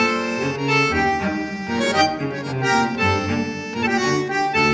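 Background music: a steady tune of held notes that change every fraction of a second over a bass line.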